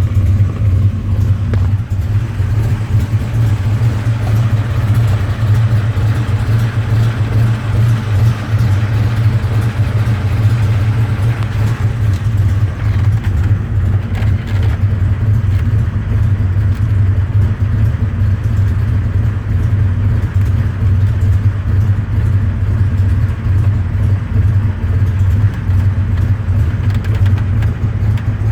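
Ford 4.6-litre two-valve modular V8, a built competition engine, idling steadily with a strong, even low drone; it is freshly installed, with good oil pressure, and running cool.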